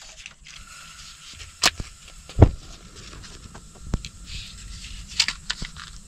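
Portable camping gas stove being lit: a few sharp clicks of the ignition knob, the loudest about two and a half seconds in with a dull thump, as the burner catches.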